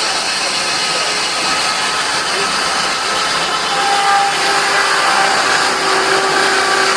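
Steam-powered sawmill running, belt-driven by a Peerless Z3 steam traction engine: a loud, steady mechanical noise. A steady tone joins it about four seconds in.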